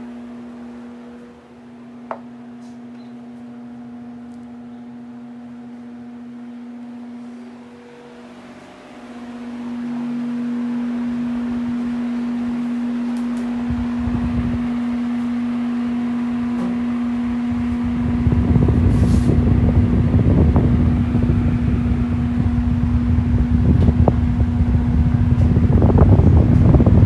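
Arge Max 200 W, 60 cm electric fan running, its motor giving a steady hum, with a single click about two seconds in. It dips briefly and then gets louder around ten seconds in, and from about eighteen seconds in its airflow buffets the microphone with a rumbling wind noise.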